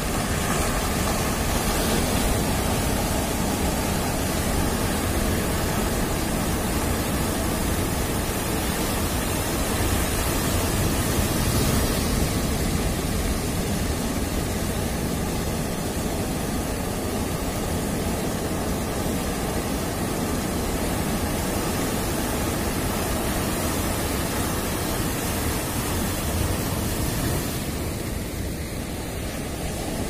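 Big surf breaking and washing up a sandy beach: a steady roar of water noise.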